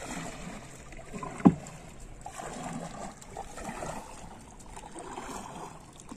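Lake water lapping and sloshing against the hull of a wooden rowing boat as it moves. There is one sharp knock about one and a half seconds in.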